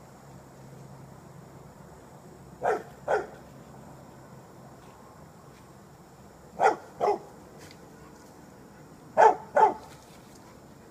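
Springer spaniel barking at vultures in the yard: three quick double barks a few seconds apart.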